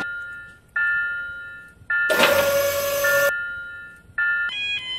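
Cartoon level-crossing sound effects: electronic bell-like chime strikes about once a second, broken in the middle by a loud second-long hiss with a steady tone in it. Near the end a faster, repeating crossing-alarm ringing starts.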